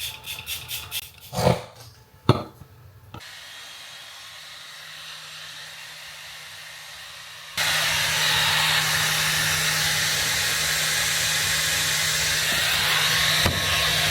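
A few clicks and knocks, then a handheld hair dryer comes on at a low setting with a steady blowing noise and motor hum. About halfway through it jumps to a much louder setting.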